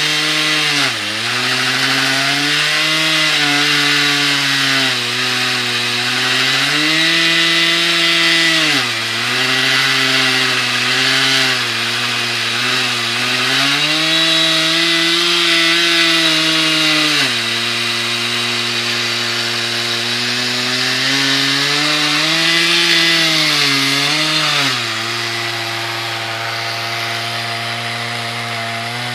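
Chainsaw on an Alaskan chainsaw mill ripping lengthwise through a monkey puzzle log. It runs hard throughout, its pitch sagging and recovering several times as the long cut loads the chain.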